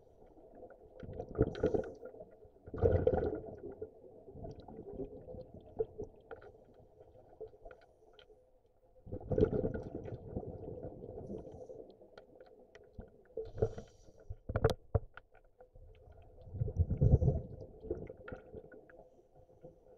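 Scuba regulator exhaust bubbles underwater: bursts of low bubbling rumble, each about a second long, coming every few seconds with the diver's breaths. A single sharp click sounds about three quarters of the way through.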